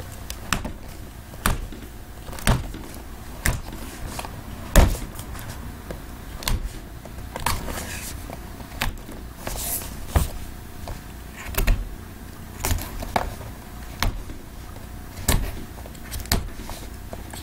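Small cardboard boxes being handled and set down on a table: a string of sharp knocks and taps, roughly one a second, with light rubbing of cardboard in between.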